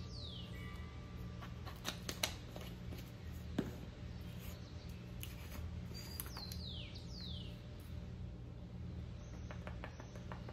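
A plastic measuring spoon and a small spice jar clicking and tapping as spice is scooped and tipped, with a few sharp taps about two seconds in, one more just before four seconds, and light ticks near the end. Under it plays a soft background track with repeated falling chirps.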